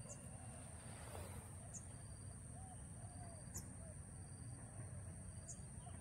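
Steady high-pitched insect drone with a few short, sharp high chirps about two seconds apart and faint short low calls behind it.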